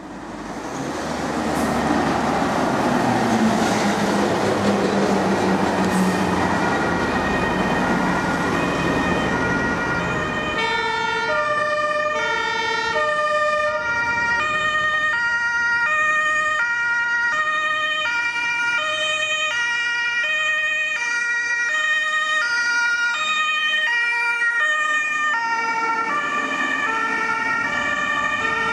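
Road traffic and a lorry engine passing, then, about ten seconds in, a German ambulance's two-tone siren (Martinshorn) begins, alternating steadily between a high and a low note, each held for under a second, while the ambulance drives by.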